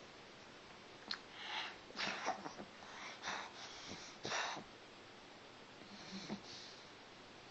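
Snoring in its sleep: a run of hissy, breathy snores close together between about one and four and a half seconds in, then a softer one near six seconds.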